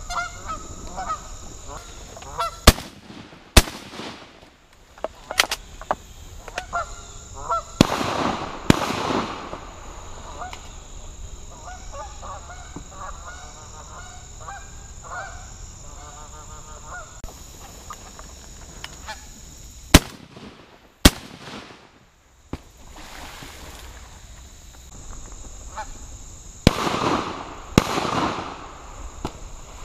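Canada geese honking and clucking in repeated calls. Four sharp, very loud shotgun shots in two pairs, each pair about a second apart. Two broad rushing noises are heard, the second near the end.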